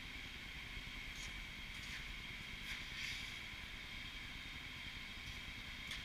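Steady background hum in the shop with a few faint knocks and scuffs as a large tractor tire is rolled and handled on a concrete floor.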